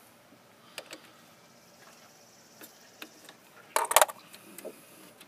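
Small metal clicks and clinks of a wrench and the accelerator cable's threaded adjuster fitting being worked at the pedal assembly: a couple of light clicks about a second in and a quick, louder cluster of clinks about four seconds in.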